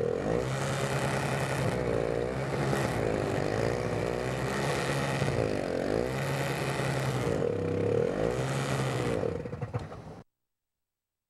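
An engine running steadily, its pitch sweeping up and down every second or so, then cutting off abruptly about ten seconds in.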